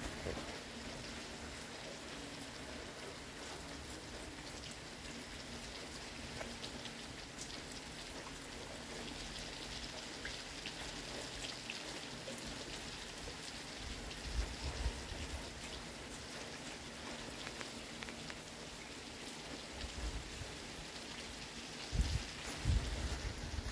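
Steady rain falling, with scattered drip ticks and a few brief low thumps around the middle and near the end.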